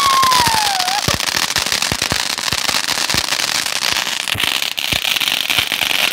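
Ground firework spraying sparks: a steady loud hiss with dense crackling pops throughout. A whistle-like tone slides down in pitch and ends about a second in.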